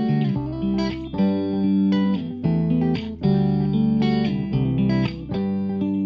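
Background music: guitar chords, changing every second or so.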